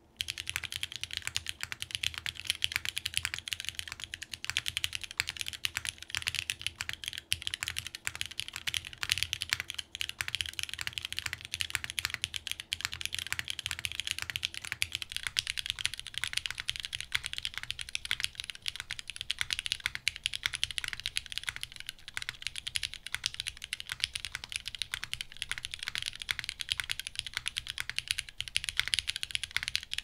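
Continuous typing on a daji Trill60 custom 60% mechanical keyboard with broken-in, stem-lubed Cherry Hyperglide Black linear switches in an O-ring-mounted full aluminium plate, under GMK keycaps: a steady, fast stream of keystrokes without pause.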